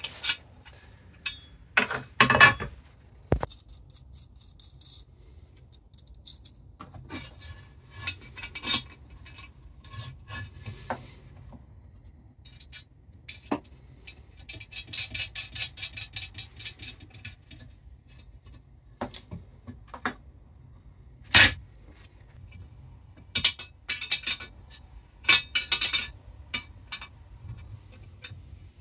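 Small metal parts being handled: steel locking nuts being threaded onto a bolt through an aluminium angle bar and tightened with a spanner, with scattered clinks and scrapes of metal on metal. A quick run of rattling ticks about halfway through, and one sharp knock a little later.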